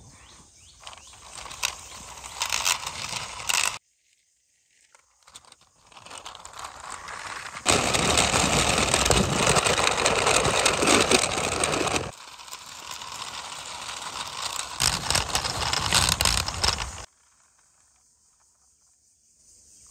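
Plastic wheels of a toy auto rickshaw rolling and scraping on a rough concrete ledge, a gritty noise that comes in several stretches broken by sudden cuts. It is loudest around the middle and stops abruptly near the end.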